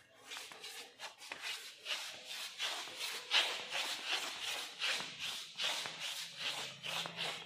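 Shuffling footsteps scuffing on a hard floor, an irregular run of soft scrapes about two or three a second.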